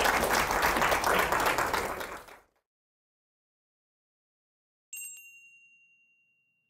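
Audience applauding, cut off about two and a half seconds in. After silence, a single bright chime rings once and fades over about a second and a half as a logo sting.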